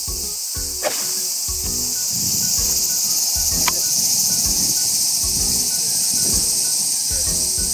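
Steady, high-pitched chorus of insects, with background music of repeating low notes underneath and two short sharp clicks, about a second in and near four seconds.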